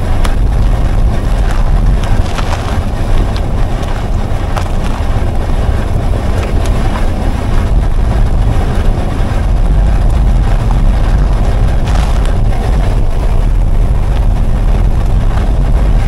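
BMW F15 X5 40e tyre rolling slowly over coarse asphalt, heard up close from beside the wheel, with wind rumble on the microphone and scattered small crunches of road grit. It is recorded to capture a soft rear grinding that new brake shoes and wheel hubs have not cured, which the owner links to the electronic parking brake.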